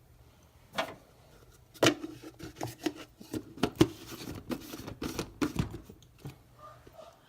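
Irregular light clicks and knocks, a few a second, starting about two seconds in and thinning out near the end, like objects being handled in a small room.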